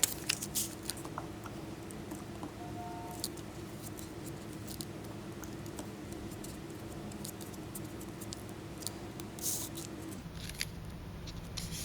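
Glue brush being dipped, wiped and dabbed around the edges of a paper cut-out: faint scattered clicks and light scratches on paper. A steady low hum underneath stops about ten seconds in.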